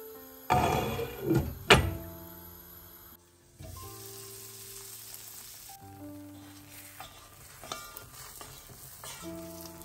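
A glass pan lid clatters down onto a frying pan with a sharp knock about a second and a half in, then the egg-and-potato mixture sizzles in the hot pan, with a few light taps of a wooden spatula near the end. Soft background music plays throughout.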